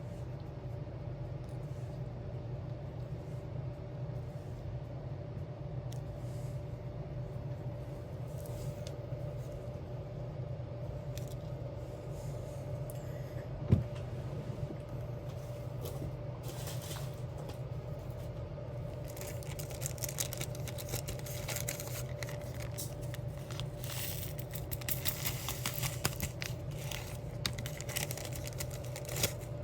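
Diamond painting at work: small clicks, taps and plastic crinkles from the drill pen, resin gems and sticker sheet, growing busier in the second half, over a steady low hum. One sharper knock about halfway through.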